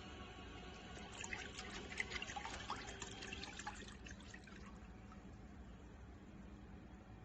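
Water pouring and splashing for about three and a half seconds, starting about a second in, over a faint steady hum.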